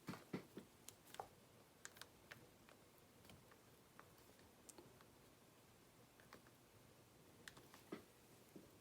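Faint, irregular clicks and taps: several in the first two and a half seconds, then only a few scattered ones.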